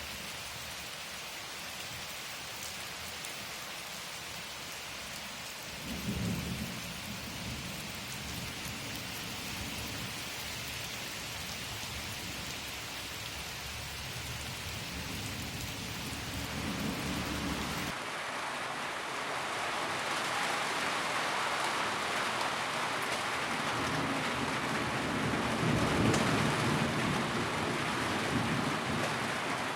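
Steady rain with low rolling thunder from about six seconds in. About two-thirds of the way through the sound changes abruptly to a heavier downpour with more thunder, loudest a few seconds before the end.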